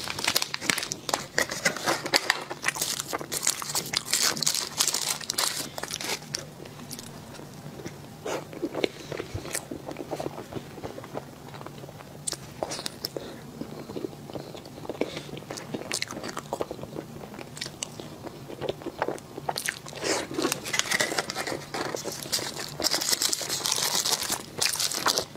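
Close-miked biting and chewing of soft mochi cream cakes: wet mouth clicks and smacks. There are stretches of rustling in the first few seconds and again near the end.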